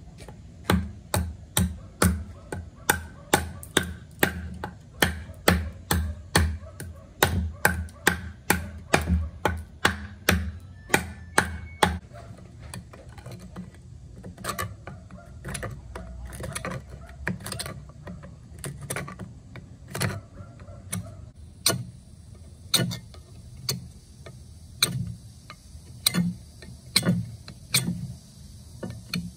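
A hand-forged knife made from a farrier's rasp chopping into a wooden board, sharp strikes about two to three a second. About twelve seconds in this gives way to softer, quicker clicks as the blade shaves an antler, and from about twenty seconds sharper chops come roughly once a second as it cuts into a wooden stick.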